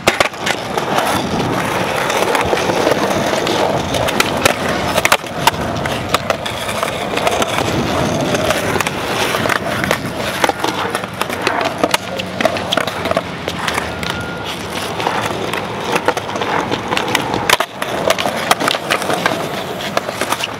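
Skateboard wheels rolling over a concrete skatepark surface: a steady gritty rumble broken by sharp clacks of the board.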